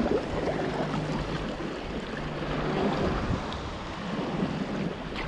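Sea water sloshing and lapping around a kayak, with wind noise on the microphone: a steady rushing hiss.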